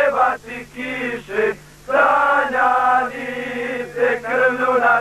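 A group of men singing a Bosnian wartime song together, with long held notes and a short break for breath partway through. A faint steady low hum runs underneath.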